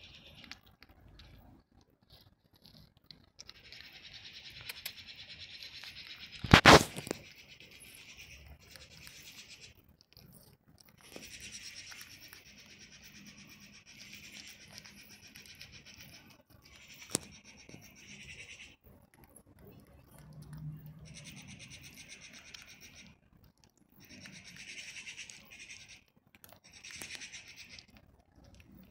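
Cat crunching dry kibble, chewing in bursts of one to three seconds with short pauses between. One loud knock about seven seconds in, and a smaller sharp click later.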